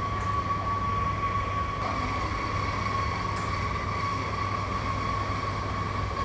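Steady machine hum with a constant high-pitched whine over it, an even background drone with no breaks.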